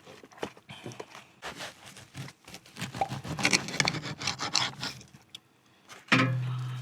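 Paper burger wrapper crinkling and rustling in small irregular clicks as a fast-food burger is unwrapped and handled. About six seconds in, a low steady hum sets in and fades.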